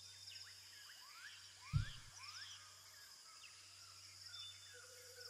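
Rainforest ambience: many short rising bird whistles over a steady high insect buzz. A single low thump a little under two seconds in is the loudest sound.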